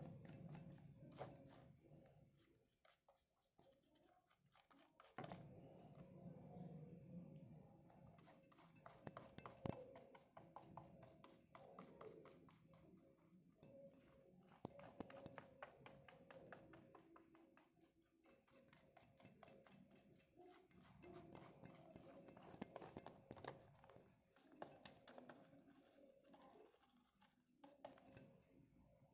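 Faint, rapid scratchy ticking of a paintbrush stroking paint onto the outside of a thin plastic box, in runs of quick strokes with a quieter pause early on.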